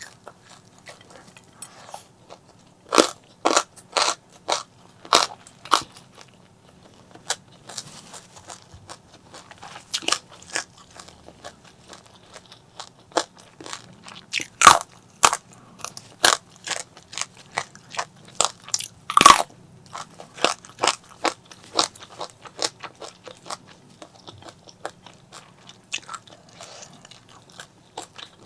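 Close-miked eating sounds: a person biting and chewing crunchy food, with irregular sharp crunches that come in quick runs and include a few louder bites.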